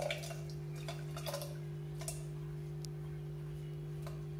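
Soaked millets being scraped by hand from a glass bowl into an open pressure cooker: a few scattered light clicks and taps of the bowl and grains against the cooker, over a steady low hum.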